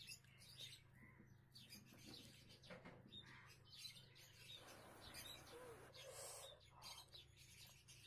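Fingers kneading rice and curry on a plate, making faint, irregular wet squishing and clicking sounds over a steady low hum.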